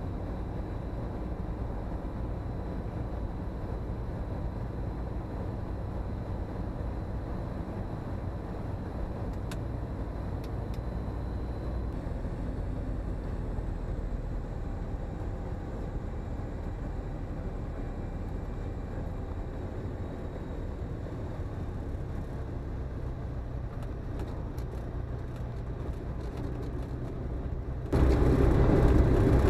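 Comco Ikarus C42C microlight's propeller engine running at low taxi power, a steady low drone heard inside the cabin. Near the end the sound suddenly gets much louder.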